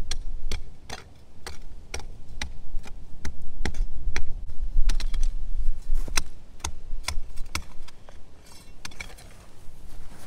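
A steel spade chopping into stony clay soil at the bottom of a trench, making sharp strikes about twice a second. Near the end the strikes give way to a brief rustling scrape as loose soil is pushed along.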